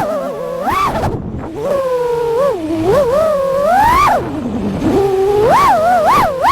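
FPV quadcopter's brushless motors whining, the pitch swooping up and down quickly with the throttle and climbing to a high peak about four seconds in before dropping.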